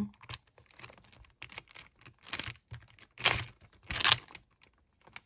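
Thick clear adhesive tape crinkling and crackling under the fingers as it is pressed and squeezed to seal a puffy tape squishy, with sticky tearing-like crackles where the tape grips and lets go. It comes in irregular bursts, the loudest a little past the middle.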